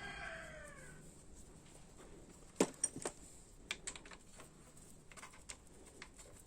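A rooster's crow trails off in the first second, falling in pitch, followed by a few sharp clicks and knocks of hand work on the motorcycle. The loudest click comes about two and a half seconds in.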